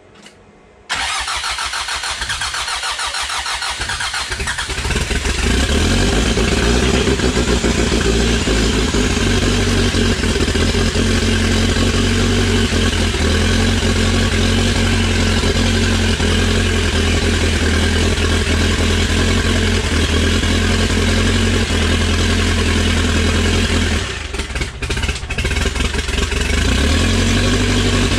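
Freshly rebuilt Mitsubishi 4D55T turbo-diesel four-cylinder being cranked by its starter for about three seconds, then firing and running steadily. This is its first start after the rebuild and fuel-system bleed. Near the end it falters briefly, then runs on.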